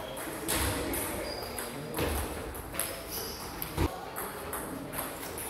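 Table tennis balls clicking off paddles and tables, from this match and other tables in play, in irregular ticks with the sharpest click nearly four seconds in.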